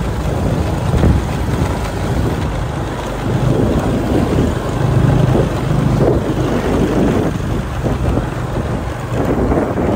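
A vehicle's engine running as it travels along a rough dirt road, with wind rumbling on the microphone. A steady low engine tone rises above the rumble about five seconds in.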